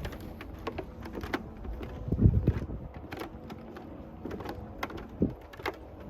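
Footsteps crunching on packed snow: irregular short crisp crunches over a steady low rumble, with a few heavier low thumps about two seconds in and again near five seconds.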